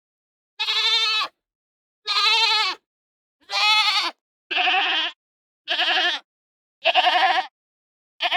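Goat bleating: seven short, wavering calls about a second apart, separated by dead silence, the last one clipped at the very end.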